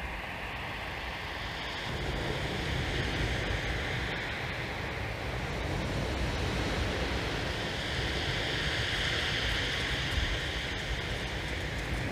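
Sea surf breaking and washing over a shingle beach, a steady hiss, with wind rumbling on the microphone; it gets louder about two seconds in.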